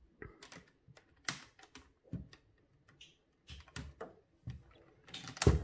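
Irregular light clicks and taps from a smartphone being handled, about a dozen, the loudest cluster near the end.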